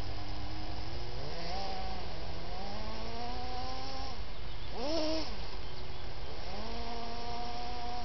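Kyosho Blizzard RC snowcat's electric drive whining, its pitch rising and falling with the throttle: up about a second in, up again from about two and a half seconds, a quick rise and fall near the middle, then rising and holding near the end. A steady low rumble runs underneath.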